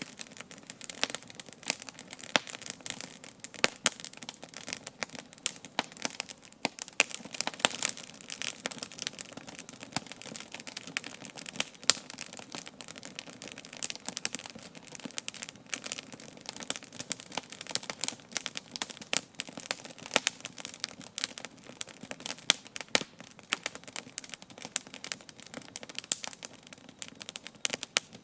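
Wood campfire crackling and popping steadily, a dense irregular stream of sharp snaps.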